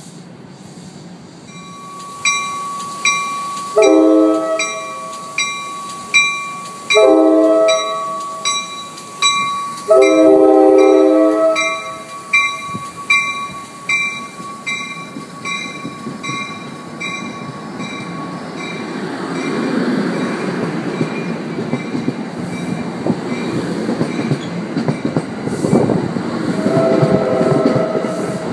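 NJ Transit passenger train departing: a bell rings about once a second while the horn sounds three times, the third blast the longest. The train then gathers speed past, its running noise building steadily, with one more short horn blast near the end.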